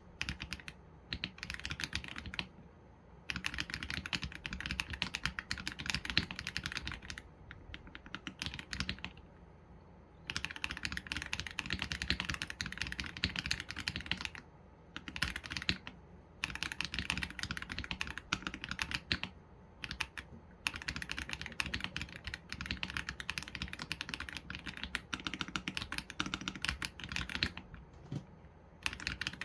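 Typing on an AULA F87 Pro mechanical keyboard with Leobog Graywood V3 linear switches and PBT keycaps: rapid runs of keystrokes in several bursts, with short pauses between them.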